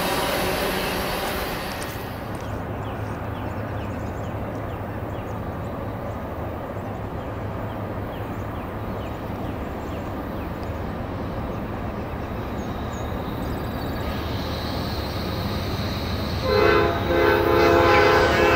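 Freight train rumbling along the track: a double-stack intermodal train rolling away at first, then, after a cut, a low rumble from a distant approaching train. About two seconds before the end, the approaching train's diesel locomotive horn sounds loud, a multi-note chord in a few blasts with short breaks.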